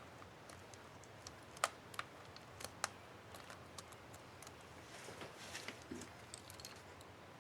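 Small sharp plastic clicks and snaps from an HP ENVY 15 laptop's Shift keycap and its retainer clips being handled and fitted onto the keyboard. A few louder clicks come in the first three seconds, then a quicker run of small clicks near the end.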